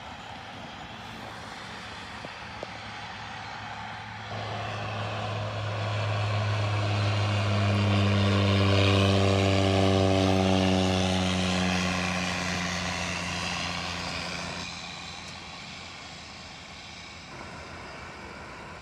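Twin-engine turboprop passing low overhead on approach. Its propeller drone builds, is loudest about nine seconds in, then fades away, the pitch dropping as it goes by.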